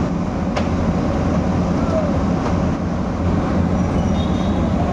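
Cat 320D excavator's diesel engine running steadily, a deep even rumble, with one sharp click about half a second in.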